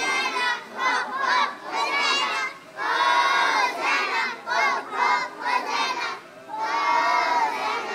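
A group of preschool children shouting out a song together, loud phrases of many voices at once with brief breaks between them.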